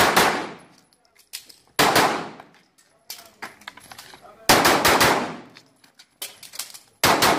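Pistol fired in quick groups of shots, a new group about every two to three seconds, each shot sharp with a short echoing tail, as a competitor engages targets on a practical shooting stage.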